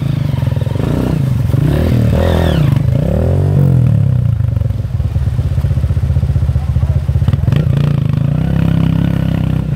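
Dirt bike engine running close by under load, revving up and down in the first few seconds as the bike climbs a steep muddy bank, then holding a steadier low throttle.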